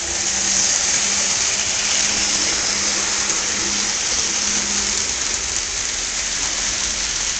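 Model train with two Penn Central GP38 diesel locomotives running along the layout track: a steady rolling hiss of wheels on the rails with a low, even motor hum that comes in as the locomotives pass close by.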